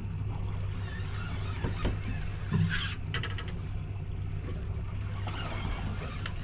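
Steady low hum of a fishing boat's outboard motor idling on calm water, with a short rattle and a few sharp clicks about two and a half seconds in.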